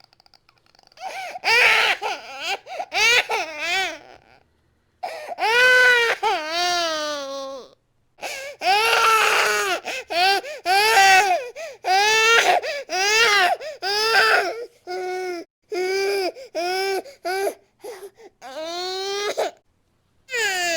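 Infant crying hard in a series of wailing cries, each rising and falling in pitch, broken by short breaths and pauses.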